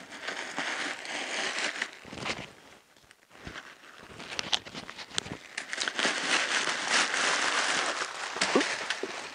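White paper stuffing being pulled out of a new handbag and crumpled, a crinkling rustle with small crackles. It comes in a short spell at the start and a longer, louder one over the second half, with a lull around three seconds in.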